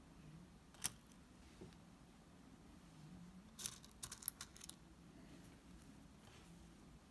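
Faint small clicks of sprinkles and sugar pearls being handled in plastic lids and on a plastic chocolate mould: one sharp click about a second in, then a quick cluster of little clicks and rattles around four seconds in, otherwise near silence.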